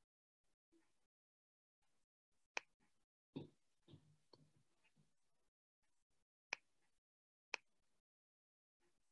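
Near silence broken by a few sharp clicks, three in all, the first about two and a half seconds in and the last two a second apart near the end, with a soft low knock in between.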